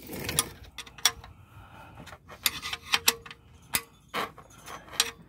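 Wrench working the oil drain plug on a car's steel oil pan, giving scattered light metallic clicks and taps, roughly one every half second.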